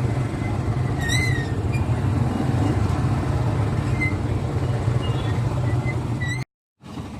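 A motor vehicle's engine running steadily with a low rattling rumble, with two brief high squeaks, one about a second in and one near the end. The sound cuts out abruptly near the end.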